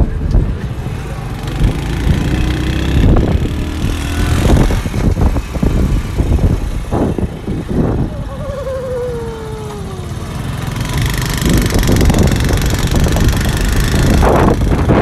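Road traffic heard on the move: motorcycle and motorcycle-rickshaw engines running close by with steady rumble and repeated knocks. Just after eight seconds a passing vehicle's tone falls in pitch over about two seconds.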